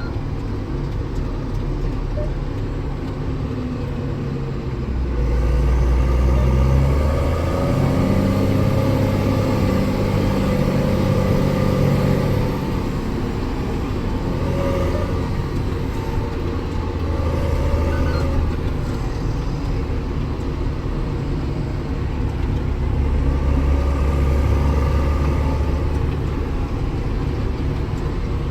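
Tractor engine running under load while hauling on the road, its low note swelling louder twice, about a quarter of the way in and again near the end.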